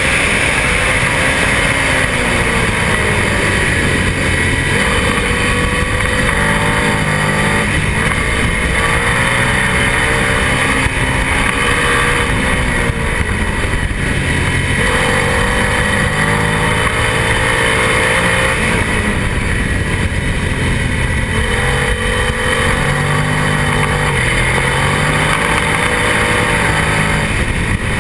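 Twin-cylinder racing motorcycle engine at full race pace, heard from on board: its pitch climbs repeatedly and drops back at each upshift or braking, over heavy wind rush.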